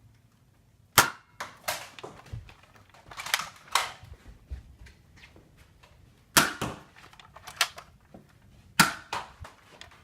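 Spring-powered Nerf dart blasters being primed and fired in a quick back-and-forth: about nine sharp snaps and clacks in irregular clusters, the plastic clack of priming mixed with the thwack of each shot.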